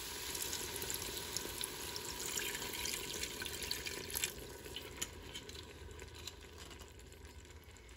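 White wine poured in a stream into a hot stainless steel stockpot of sautéed carrots and onions, splashing and sizzling as it hits the pan. The pour stops about four seconds in and the sizzle fades.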